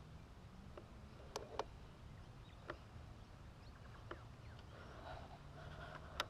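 Faint scattered clicks and snaps, about five of them with the loudest near the end, over a low steady rumble.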